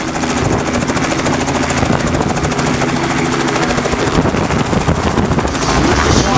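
Robinson R44 helicopter running at lift-off power, its two-bladed main rotor making a rapid, steady chop over the piston engine's drone. It grows a little louder near the end as the skids leave the grass.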